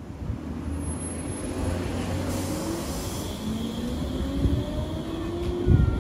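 Electric rack-railway railcar pulling away, its traction drive giving a whine that climbs in pitch in repeated steps as it accelerates, over a low running hum.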